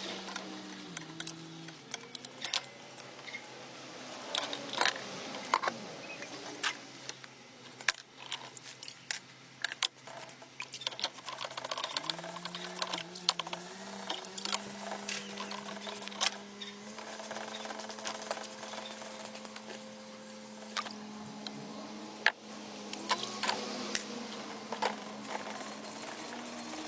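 Irregular clicks, taps and clinks of metal tools and parts being handled, over low held tones that shift pitch a few times.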